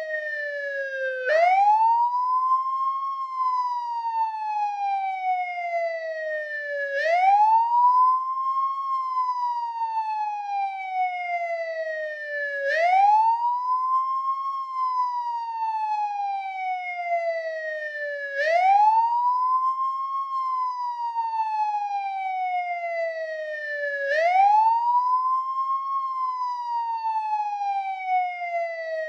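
American police siren on the wail setting: one wailing tone that climbs quickly, then slides slowly back down, repeating about every six seconds, five times over.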